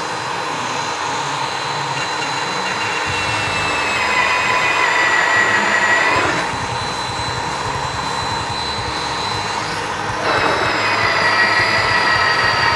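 Milwaukee M18 FUEL cordless magnetic drill running with a steady motor whine as its annular cutter bores through steel plate. The pitch sags slightly and the sound grows louder as the cutter bites, about four seconds in and again after ten seconds, easing off briefly in between.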